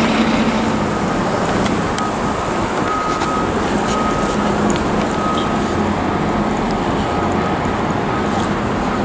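City street traffic: a steady wash of road noise from passing vehicles, with a low hum underneath.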